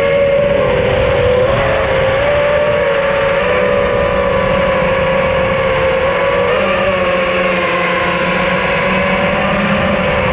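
A camera drone hovering and flying low, its propellers giving a loud, steady whine that wavers slightly in pitch.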